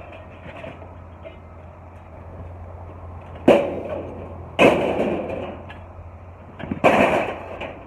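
Scrap metal crashing down onto a pile three times: two loud clangs about a second apart, then a third about two seconds later, each ringing briefly. A steady low hum runs underneath.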